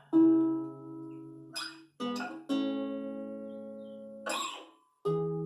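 Epiphone Lil Tex travel acoustic guitar, played unplugged: about four chords strummed one at a time, each left to ring and fade, with short scratchy noises between some of them. The tone sounds a little damp.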